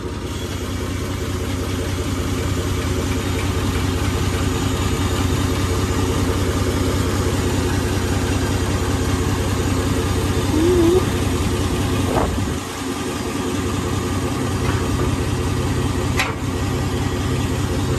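Diesel engine of a Foden recovery truck running steadily to drive its crane as it hoists an armoured vehicle's engine deck on chains, with a couple of faint clicks partway through.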